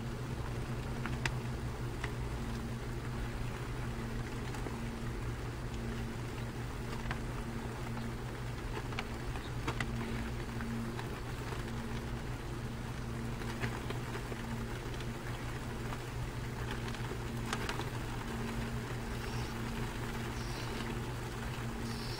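Steady low engine hum, like a motor idling, with faint scattered ticks; near the end a few short high-pitched sounds come in.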